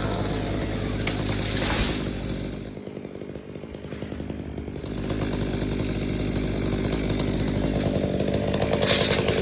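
Chainsaw running, dropping back briefly around three seconds in and then running up again.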